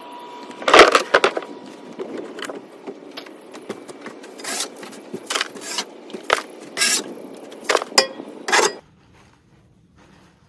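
Shovel scraping and knocking on a wooden coop floor as old wood-shavings bedding is scooped out, with a loud clatter from a plastic wheeled trash bin being handled about a second in. The knocks and scrapes come at irregular intervals and stop abruptly near the end.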